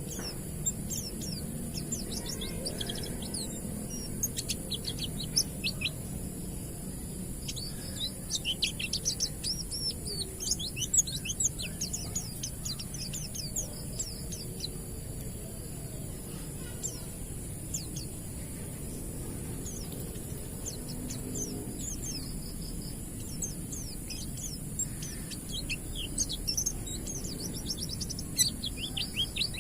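White-eye (pleci) singing its ngalas song: runs of high, quick sweeping chirps in bursts, busiest around a third of the way in and again near the end, over a steady high hiss.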